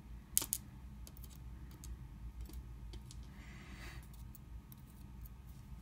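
Faint, scattered light clicks and taps of metal tweezers picking tiny pins and springs out of a disassembled lock cylinder, with a brief soft rustle about three and a half seconds in.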